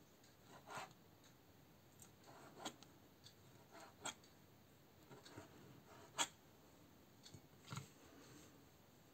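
Kitchen knife slicing boiled butter mushrooms on a cutting board: faint, separate cuts and taps of the blade on the board, about six in all, the sharpest about six seconds in.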